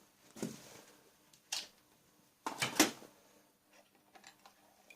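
A few brief handling sounds: small knocks and rustles, the loudest and longest about two and a half seconds in.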